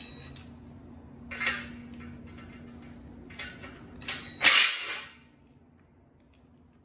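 Metal clanks and clatter from a chain and a cordless drill against a cast-iron tractor seat: a few short knocks, with the loudest clatter about four and a half seconds in. A steady low hum underneath stops at about the same moment.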